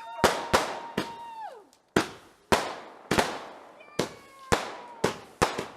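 Fireworks going off in quick succession, about two sharp bangs a second. Early on a high whistle holds steady and then falls in pitch, and a fainter falling whistle comes around the fourth second.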